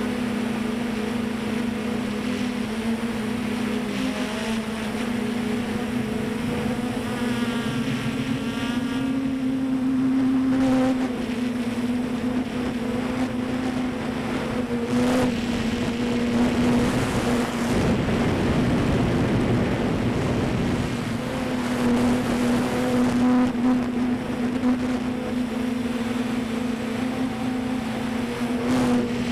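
Multirotor drone's propellers buzzing with a steady hum, with wind noise over the microphone swelling now and then.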